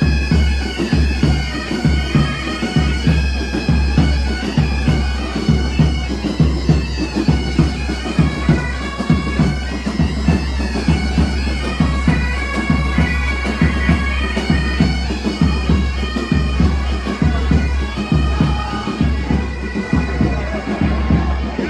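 Pipe band playing while marching: massed bagpipes carry the melody over their steady drones, with drums beating in time.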